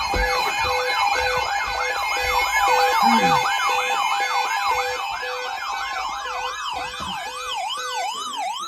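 Electronic siren sounding. It first runs a fast yelp, sweeping up and down about three times a second, then changes to a slower up-and-down sweep about two-thirds of the way in. Steady tones and a beeping tone, about two beeps a second, run underneath.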